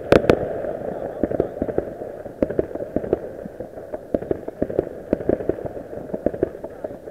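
Fireworks and firecrackers going off in many irregular, overlapping pops and cracks over a continuous rumble, with two sharper bangs just after the start.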